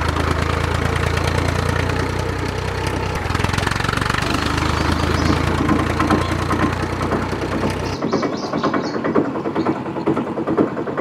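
Tractor diesel engine idling steadily with a low, even hum. About eight seconds in it cuts off abruptly and is replaced by a thinner, rattling, rhythmic sound with no low end.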